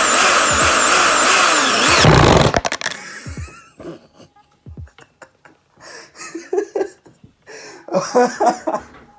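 Power drill running under load, drilling into a wooden desk, its motor whine wavering. It stops about two seconds in with a heavy thud, followed by scattered light knocks and clicks.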